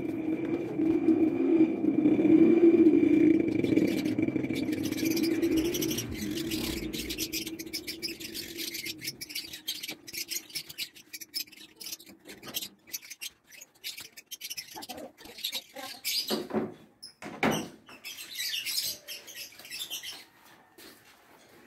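Small paint roller being worked back and forth on a painted board, giving short squeaks and scrapes. A loud steady hum fades away over the first six seconds.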